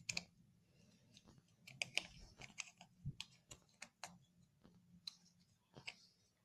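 Faint, irregular clicks and taps from small plastic objects being handled.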